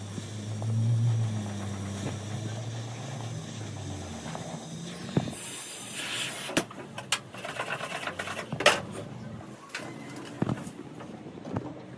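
A low engine hum that swells briefly and dies away after about four seconds, followed by a run of irregular knocks and clatter.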